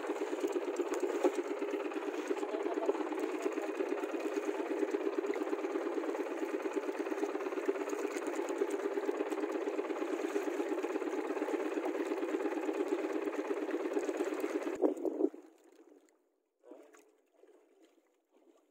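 Small boat engine running steadily with a fast, even beat, shut off abruptly about fifteen seconds in, leaving the boat quiet.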